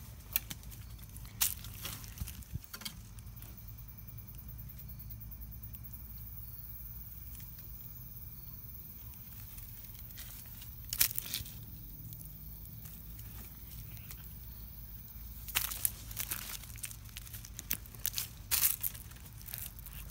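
Dry leaf litter and twigs crunching and crackling in scattered bursts: a few in the first three seconds, one sharp crackle about eleven seconds in, and a run of them in the last five seconds, over a steady low rumble.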